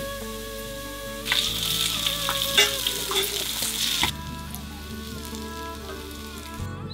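Dry fish frying in hot oil, an even sizzle that starts about a second in and cuts off abruptly about three seconds later.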